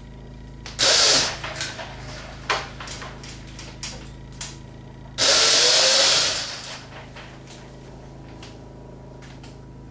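Giant homemade walking robot's electric drive motor switched on briefly twice, each time a loud burst of machinery noise followed by the metal frame knocking and rattling. The first burst comes about a second in and the second, longer one about halfway through. The motor is wired with the wrong polarity, so the legs step backwards.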